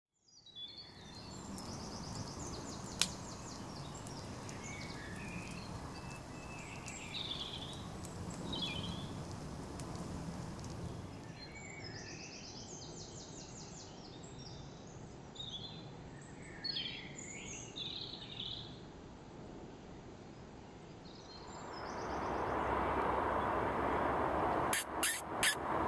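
Woodland birds chirping and calling over a steady background hiss. About 22 seconds in a louder rushing noise comes up, with a few sharp clicks near the end.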